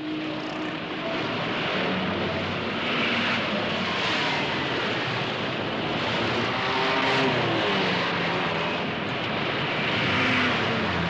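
Dense city traffic: a steady stream of cars passing close by, their engines and tyres swelling as each goes past. The traffic is loudest about three to four seconds in and again near the end.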